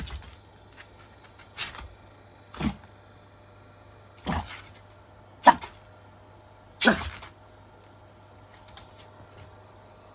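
A small Pomeranian–Chihuahua mix dog giving six short, sharp barks about a second apart, over the steady low hum of a running fan heater.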